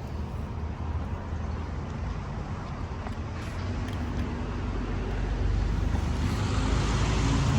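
Steady rumble of road vehicle or traffic noise, slowly growing louder.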